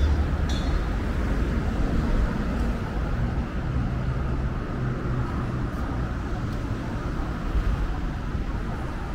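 Urban street traffic: motor vehicles passing with a steady low engine and tyre rumble, and a short click about half a second in.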